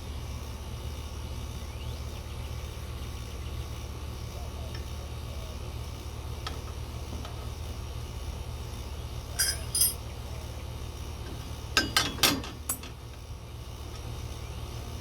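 Light metallic clinks of hardware being handled: two about two-thirds of the way in, then a quick cluster of four a couple of seconds later, over a steady low hum.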